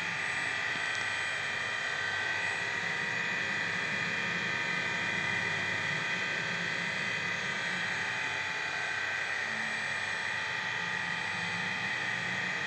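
FANUC Robodrill T21iD vertical machining centre running, its spindle turning at about 4,000 rpm: a steady high whine over a low hum.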